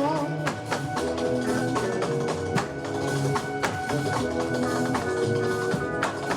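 Instrumental music with drums: held chords that change every half second or so, under sharp percussive hits.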